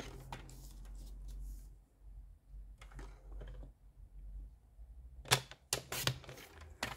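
Paper trimmer's cutting head sliding along its rail through a strip of cardstock, a steady low rasping in the first couple of seconds. About five seconds in come several sharp clicks and taps as the trimmer and the cut strip are handled.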